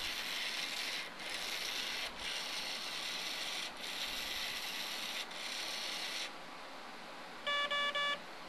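Furby's internal motor and plastic gears grinding as it runs through its movements in debug mode, with short breaks every second or so, stopping about six seconds in. Three short electronic beeps follow near the end.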